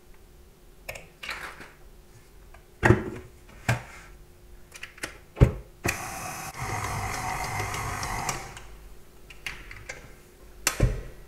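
Sharp knocks and clatter of a stand mixer's bowl and dough hook being handled. About six seconds in, a steady rushing noise runs for about two and a half seconds.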